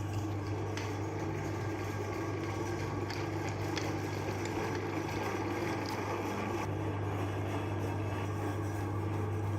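Electric meat grinder running steadily, its motor giving an even hum, with a few faint clicks as it works.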